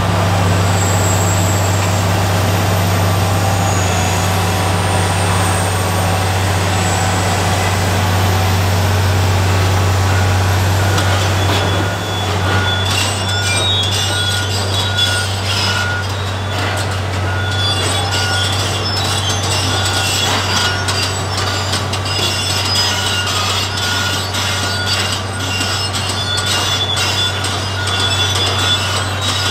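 Komatsu PC1250 demolition excavator's diesel engine running with a steady low drone; about twelve seconds in the crawler tracks start clanking and squealing as the machine turns, joined by a repeating beep.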